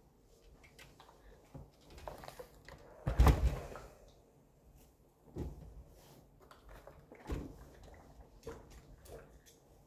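Steam iron knocking down onto an ironing board and sliding over cloth, with the rustle of a shirt being handled. A few dull thumps, the loudest about three seconds in, as the iron is stood on its heel and the shirt is lifted.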